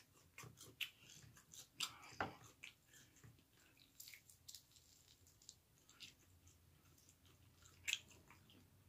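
Faint chewing with scattered wet mouth clicks, someone eating chicken wings, with a sharper click near the end.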